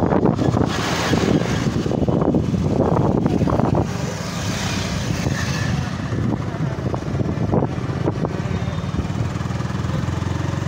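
Motorcycle engine running steadily under way. A louder rushing noise rides over it for the first four seconds, then eases.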